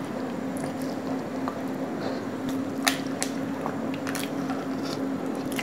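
Close-up eating sounds: soft cream cake being bitten and chewed with wet, squishy mouth noises and a few sharp clicks, over a steady low hum.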